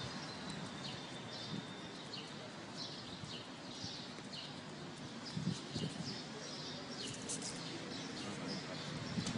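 Outdoor background hiss with many short bird chirps scattered throughout, and a couple of soft low thuds about five and a half seconds in.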